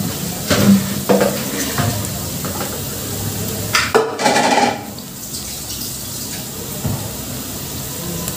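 Metal kitchenware clattering and knocking while soaked freekeh is strained of its water: a few knocks in the first two seconds and a louder clatter about four seconds in, then a steady low hiss.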